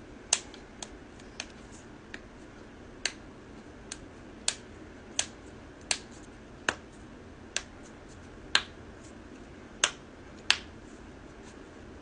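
Knuckles cracking: finger joints popped one after another as the hands press and bend the interlaced fingers, giving more than a dozen sharp pops at uneven intervals.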